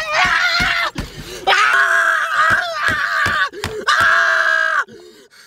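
A man screaming inside a car, two long screams, the second held for about three seconds, with short thumps and knocks beneath them. The screaming breaks off near the end.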